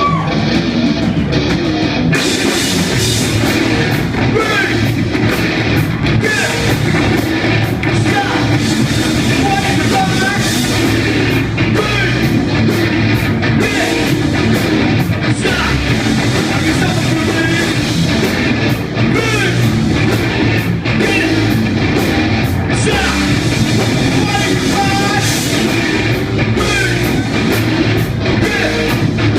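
Live heavy rock band playing a song loudly: electric guitar, drum kit and singing, with the full band filling in about two seconds in.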